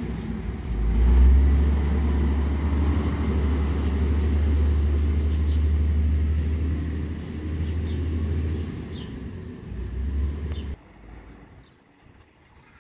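Autocar WXLL garbage truck with an Amrep Octo automated side-loader body driving off, its engine giving a low, steady rumble that swells about a second in and then slowly fades. The rumble cuts off abruptly near the end, leaving faint background sound.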